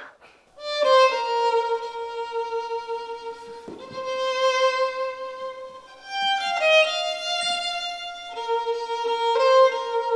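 Solo violin sight-reading a melody from a score: long held notes in two phrases, starting about half a second in with a brief break near six seconds.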